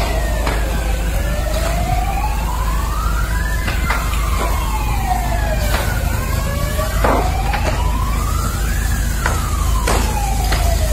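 Emergency vehicle sirens wailing slowly up and down, about one rise and fall every five seconds, with a second siren overlapping, over a steady low rumble. Several sharp pops and cracks from the burning building cut through.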